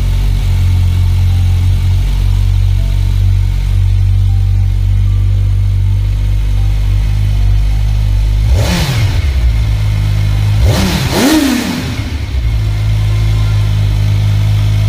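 Kawasaki Ninja 1000SX's 1043 cc inline-four idling steadily through its stock exhaust, with two quick throttle blips a little past the middle, about two seconds apart, each rising in pitch and dropping back to idle.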